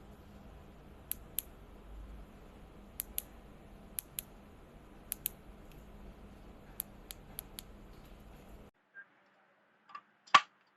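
A series of small sharp clicks: four close pairs about a second apart, then four quicker single clicks. Near the end the background hiss cuts off suddenly and one louder click follows.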